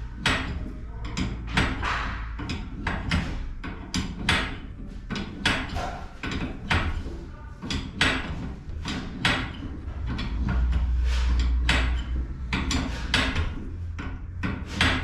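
Irregular knocks and clanks from hand work on garage door hardware, roughly one or two a second, over a low rumble that grows louder for a couple of seconds about ten seconds in.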